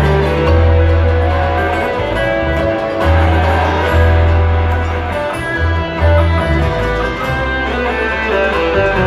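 Live band playing loudly over a concert PA, guitars over a heavy bass line of notes held about a second each.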